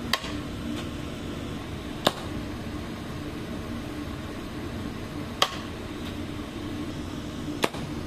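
Glass Torch Tech Snub Nose Mirage oxygen-propane glassblowing torch burning with a steady hiss, over a low hum that fades after about two seconds. Four short sharp clicks come a few seconds apart.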